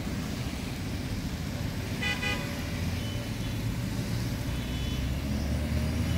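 Road traffic passing with a steady low rumble, and a brief car horn toot about two seconds in.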